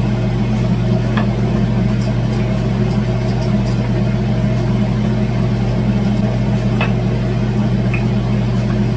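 Steady low mechanical hum of a running kitchen appliance motor or fan, with a couple of faint light knocks from a wooden rolling pin on a wooden roti board.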